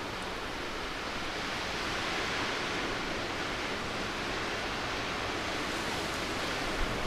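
Outdoor snowstorm ambience: a steady rushing noise that swells a little about two seconds in, with a brief low bump near the end.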